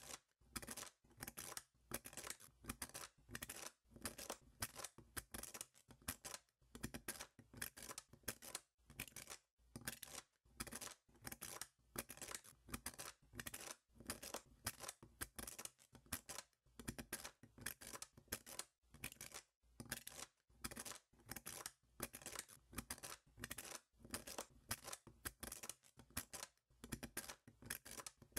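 Small neodymium magnet balls clicking and scraping as a plastic blade slices through a stacked magnet structure, in a steady run of short crunching cuts, about two or three a second.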